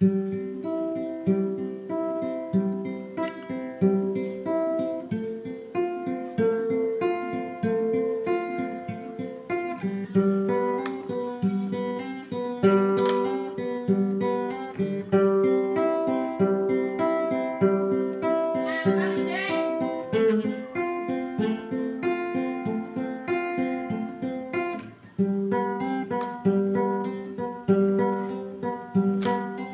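Guitar music: plucked notes and chords in a steady rhythm, with a brief break about 25 seconds in.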